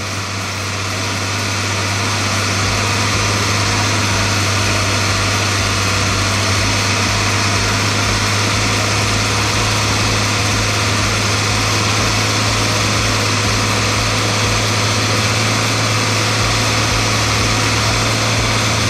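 Massey Ferguson 399 tractor's six-cylinder diesel engine running steadily, rising in level over the first couple of seconds and then holding an even drone.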